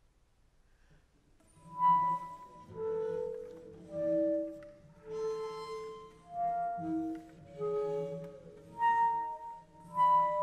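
Near silence, then about two seconds in a concert flute begins a slow line of separate held notes, each about half a second to a second long, over a low held note underneath.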